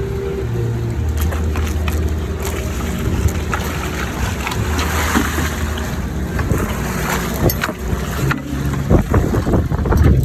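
Boat engine running steadily, its low hum shifting slightly in pitch a couple of times, with wind on the microphone and scattered knocks and thumps on the boat that come thicker near the end.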